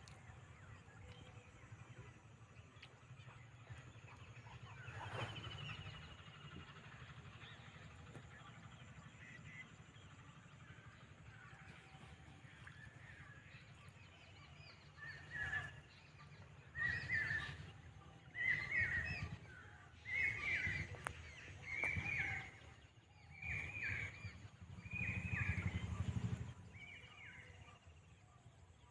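A bird calling over and over: a run of about eight loud, similar calls a little over a second apart through the second half, over a faint steady low rumble.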